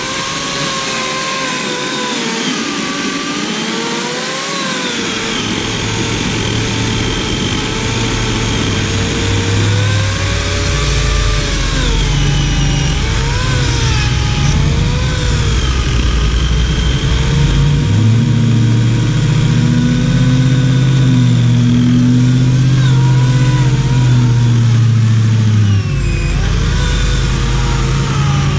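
Bauer 16-inch 14.5-amp electric chainsaw cutting into a thick tree stump, its motor whine dipping and rising in pitch as the chain bogs under load and frees up. A heavier low rumble joins about five seconds in and drops off suddenly near the end.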